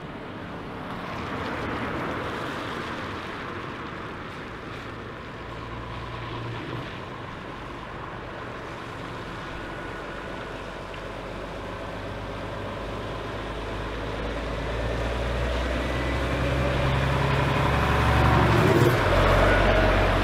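Diesel engines of heavy Scania and Volvo trucks running at low speed as they roll slowly past in a line. The sound grows louder toward the end as a truck comes close.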